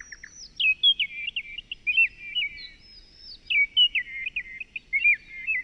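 A small bird chirping: quick, high, clear notes in two similar runs of about two seconds each, with a short pause between.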